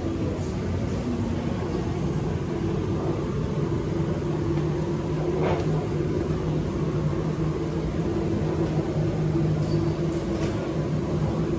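Steady low mechanical hum over a general background noise, with a brief clink about five and a half seconds in.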